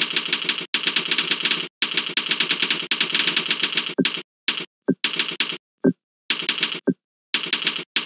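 Fast typing on a computer keyboard: rapid runs of key clicks, many a second, broken by short pauses that come more often in the second half.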